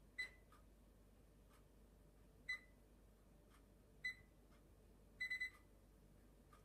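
Electric range's control-panel keypad beeping as its buttons are pressed: three single short, high beeps a second or two apart, then a quick run of three beeps near the end.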